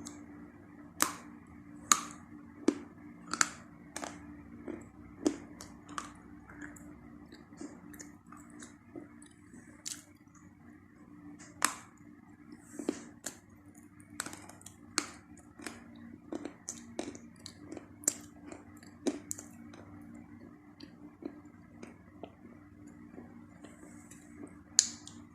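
Chalk being bitten and chewed up close: a series of sharp crunches and cracks at irregular intervals, with a steady low hum underneath.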